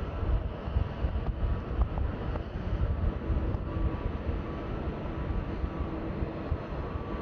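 Airliner jet engines running at low taxi power: a steady rumble with faint whining tones, with wind buffeting the microphone.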